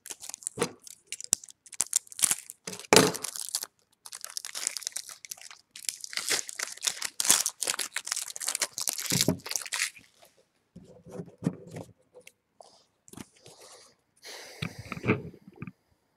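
Foil wrapper of a Bowman Chrome baseball card pack being torn open and crinkled: a dense crackling for about the first ten seconds, then quieter rustling as the cards are handled.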